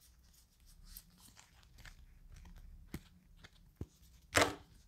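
A small deck of oracle cards being shuffled by hand: faint rustling and light clicks of card against card, with one sharper, louder card sound near the end.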